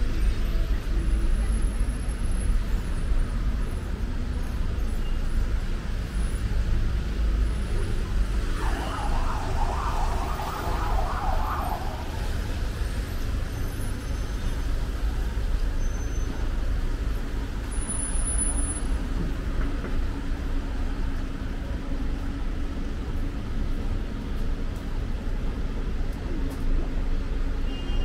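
City street traffic: a steady low rumble of passing road vehicles, with a brief burst of higher-pitched noise around ten seconds in.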